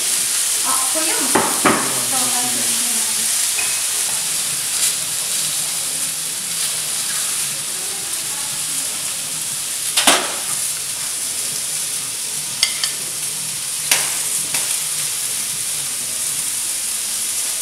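Food sizzling in a frying pan on a gas burner, a steady hiss, broken by a few sharp clinks of a metal utensil against pan and plate, the loudest about ten seconds in.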